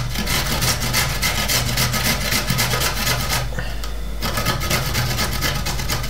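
A carrot being rubbed up and down a stainless-steel box grater, making quick, rhythmic rasping strokes. The strokes break off for under a second a little past halfway, then start again.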